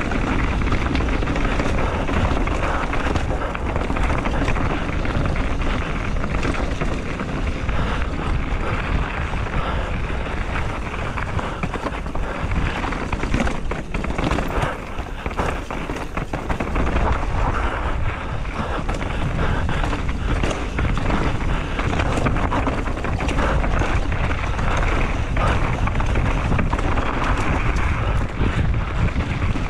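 Mountain bike descending a stony dirt trail at speed, heard through a rider-mounted camera: steady wind rush on the microphone over the rolling of the tyres on loose dirt and rock, with frequent short clicks and rattles from the bike.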